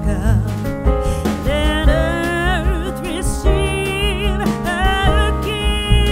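Background song: a singing voice with vibrato over instrumental accompaniment and a steady beat.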